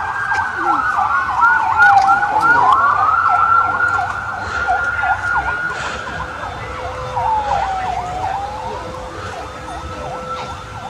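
Electronic siren sounding loudly: a high held tone that twice sweeps down in pitch and back up, with a fast warbling chirp pattern over it.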